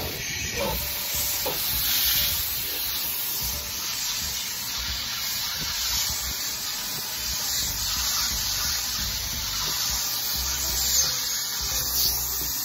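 HART 10-gallon wet/dry shop vacuum running, a steady suction hiss as its hose works over the car's floor carpet.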